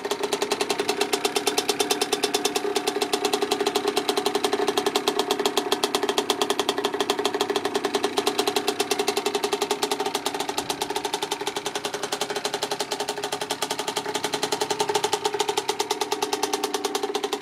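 1984 Yamaha YZ80's single-cylinder two-stroke engine running steadily, with a fast, even run of firing pulses.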